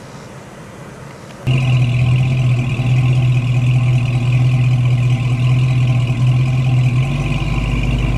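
A car engine running steadily, a loud and even hum that starts abruptly about a second and a half in. Its note deepens about seven seconds in.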